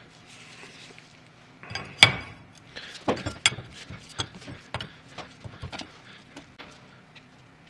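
Steel hand tools knocking and clinking against a power steering pump as it is taken apart: one sharp knock about two seconds in, then a run of lighter metallic clicks and clinks.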